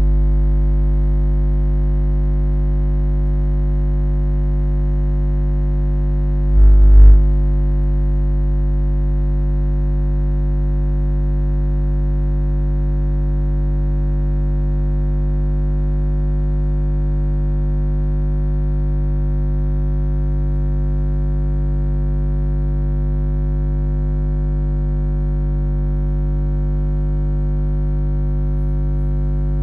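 Background music: a sustained low drone of held notes, with a brief louder swell about seven seconds in.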